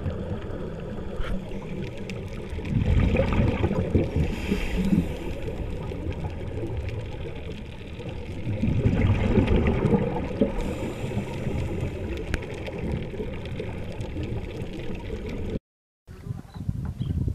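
Underwater recording of scuba divers breathing: exhaled bubbles from their regulators gurgle over a steady low rumble. Two louder bursts of bubbles come about three seconds in and about nine seconds in.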